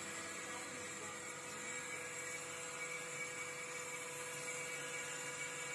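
A TYA-10 vacuum lubricating oil purifier running with its vacuum pump and oil outlet pump switched on: a steady machine hum with several constant whining tones.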